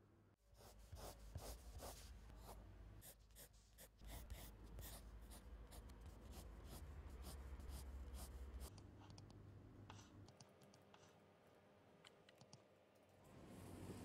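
Faint scratching of a pencil sketching on paper, in quick clusters of strokes, over a low steady hum.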